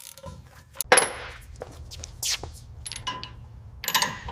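Small metal parts and hand tools clinking and tapping: a sharp click about a second in, scattered light taps with brief high ringing, and a cluster of clinks near the end, over a low steady hum that stops shortly before the end.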